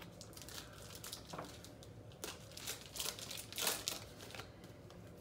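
Crinkling and rustling of a hockey card pack wrapper and cards being handled as a pack is opened, in a run of short crackles that is loudest a little over halfway through.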